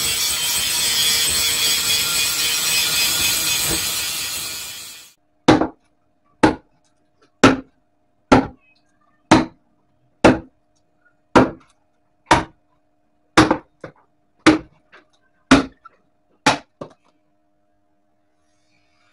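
About five seconds of loud, steady rushing noise that cuts off suddenly, followed by about a dozen sharp single hammer blows, roughly one a second.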